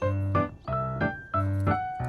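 Background music: light keyboard tune with a steady bouncy beat.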